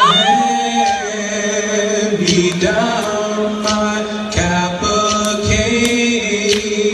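A group of men chanting in long held notes, with sharp clicks now and then.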